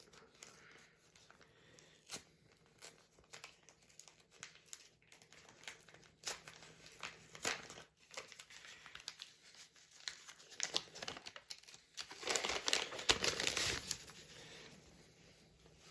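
Paper packaging being handled by hand: sparse crinkles and rustles, then a busier stretch of crinkling and tearing about twelve seconds in.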